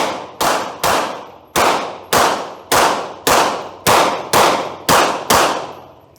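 A pistol firing a rapid string of about eleven shots, roughly two a second, each with a long echoing tail. The string stops about five and a half seconds in.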